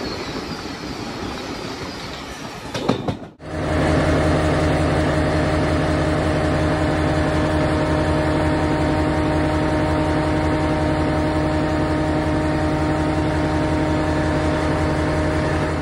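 Rushing of a moving train heard from an open window, then, after a cut about three seconds in, the steady drone of a 'Thumper' diesel-electric unit's diesel engine running at constant speed in its engine compartment, a loud even hum with unchanging pitch.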